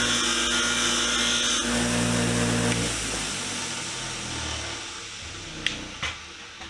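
Power wire wheel running, its steel bristles scratching over a steel adjustable-wrench part. The motor is switched off about three seconds in and winds down. Two sharp clicks come near the end.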